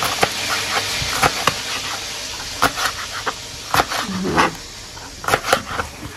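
A kitchen knife chopping green bell pepper on a plastic cutting board, giving irregular sharp knocks of the blade on the board. Behind it runs the steady sizzle of chicken frying in the paella pan.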